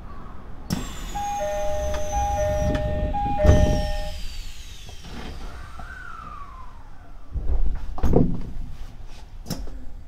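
Train's door-closing chime, a two-tone ding-dong repeated for about three seconds, ending in a heavy thump as the sliding doors shut. More clunks and knocks follow about eight seconds in.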